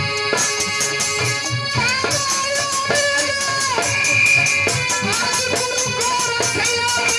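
Live Indian folk devotional music: an electronic keyboard playing a sustained, gliding melody over a steady drum and rattle beat.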